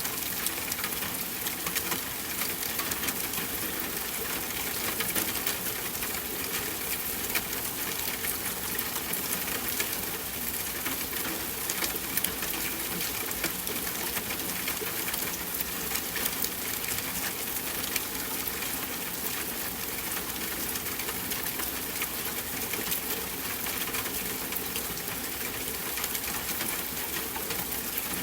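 Steady rain falling, a continuous hiss of water peppered with countless small drop impacts.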